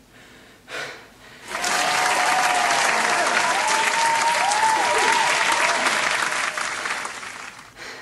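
Crowd applauding, starting about a second and a half in, steady, then dying away near the end.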